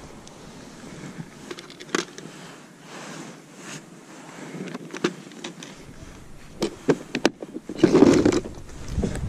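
Scattered plastic clicks and knocks of a clear plastic tackle box on wooden dock planks as a soft-plastic lure is picked out and the lid is closed, with fabric rustle from fleece mittens. A louder burst of rustling noise comes about eight seconds in.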